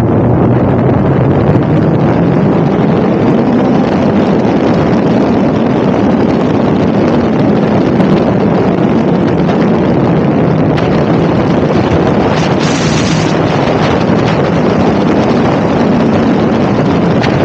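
Honda S2000 four-cylinder engine on individual throttle bodies running steadily in a Westfield sports car, largely buried under loud wind buffeting on the microphone. A brief high hiss cuts in about twelve seconds in.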